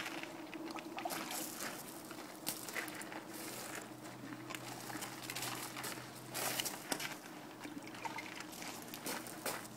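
Irregular short scuffs and rustles of a horse being groomed: a brush swept over the coat, boots shifting on gravel, and brushes handled in a plastic tote. A faint steady hum lies underneath.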